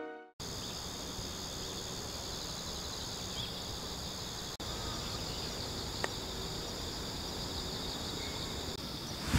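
Crickets and other night insects chirring steadily in several high-pitched layers over faint outdoor background noise.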